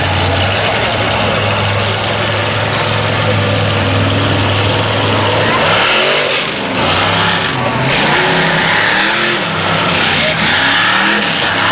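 Lifted mud truck's engine running hard under load. A steady drone for the first five seconds or so gives way to repeated revving up and down as the truck climbs and bounces through the mud.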